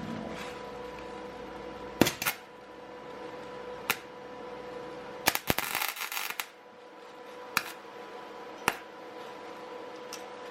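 Flux-core MIG welder arc on a broken exhaust manifold stud, striking in single sharp snaps and about a second of crackling near the middle, over a steady hum. The weld is being built up on the stud so that its heat will break it loose.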